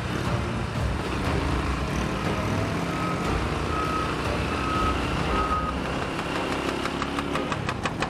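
Motorcycle engine and road noise, with four short, evenly spaced beeps at one pitch in the middle. Near the end the engine settles into an even, rapid idle pulse.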